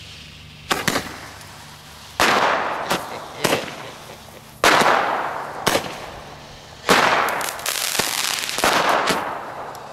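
Two handheld Roman candles firing together: a string of sharp pops about every second or so, the loudest each followed by a hiss that fades over a second or two as the shot burns out.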